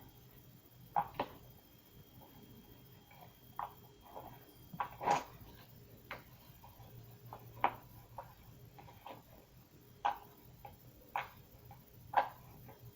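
Jumbo silicone pop-it fidget toy being pressed, its bubbles popping one by one as short, sharp clicks at an irregular pace of about one a second.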